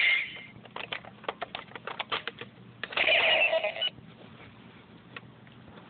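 Power Rangers Megaforce Gosei Morpher toy playing its electronic sound effects: a run of fast clicks, then a loud ringing electronic tone for about a second, starting about three seconds in.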